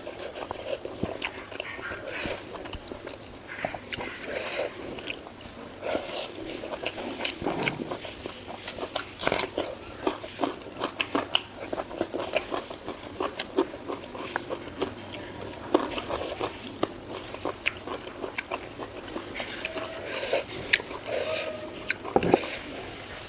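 Close-miked eating sounds: wet chewing and biting, with irregular mouth clicks and smacks several times a second.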